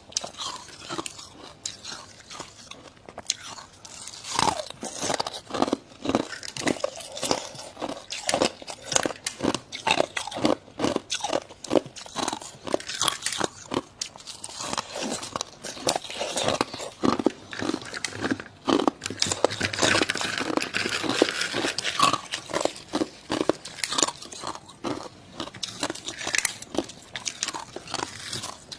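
Dry, squeaky freezer frost being bitten and chewed close to the microphone: rapid, irregular crunches, growing denser and louder about two-thirds of the way through.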